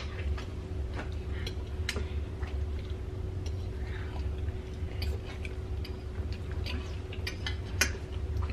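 Forks and knives clicking and scraping on plates at irregular moments, with a sharp clink right at the start and another near the end, and soft chewing, over a steady low hum.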